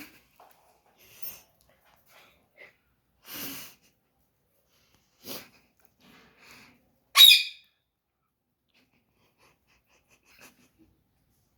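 Pet parrots making a few short, scattered sounds: soft hisses and chirps, then one sharp, high-pitched squawk about seven seconds in, the loudest sound.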